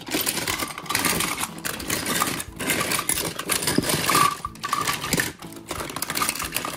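A heap of toy cars clattering and rattling against each other in a plastic storage bin as a hand rummages through them, with a few short lulls.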